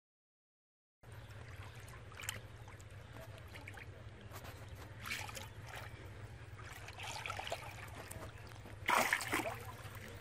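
Silent for the first second. Then shallow muddy water splashes and trickles in short bursts as hands and legs move through it, groping along the bottom, with the loudest splashing near the end, over a steady low hum.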